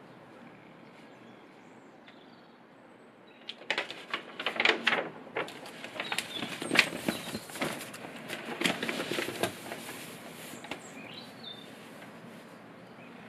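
Large sketchbook pages being turned by hand: paper rustling and crackling in a quick, irregular flurry that starts a few seconds in and lasts about six seconds before settling.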